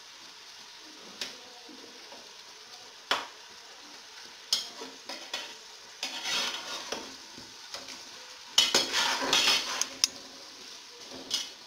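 Slotted metal spatula scraping and clinking against the metal pot of a pressure cooker as chicken and fried onions are stirred, over a steady sizzle of frying. The stirring comes in irregular spells, loudest about nine seconds in.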